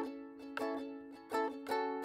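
Background music: a plucked string instrument playing a light tune, each note struck and ringing out briefly before the next.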